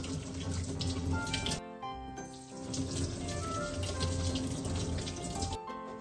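Water running from a kitchen tap into a sink while vegetables are washed. It breaks off briefly about a second and a half in and stops shortly before the end. Background music plays along.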